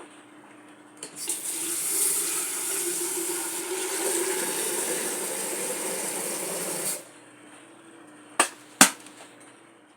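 Water running steadily for about six seconds, then cut off, followed by two sharp knocks.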